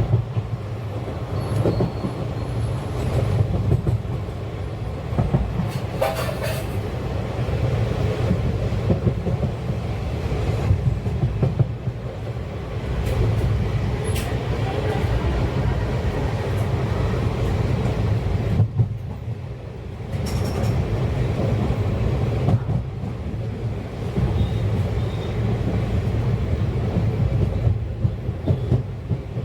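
Indian Railways passenger train running at speed: steady wheel-and-track rumble with rail-joint clatter and a few brief wheel squeals.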